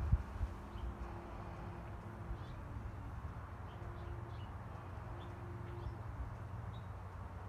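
Outdoor background: a low rumble of wind on the microphone with faint, scattered short bird chirps, and a brief bump right at the start.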